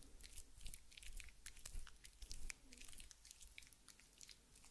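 Shaving foam crackling faintly close to the microphone: many small, irregular soft clicks and pops.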